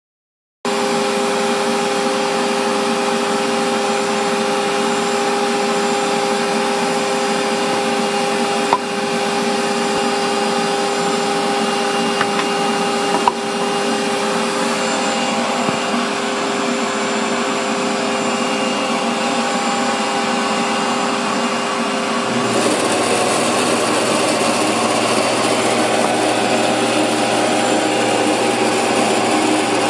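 Band saw running steadily with a hum of several steady tones and a couple of light clicks. About three-quarters of the way through, the hum gives way to a rougher, noisier sound.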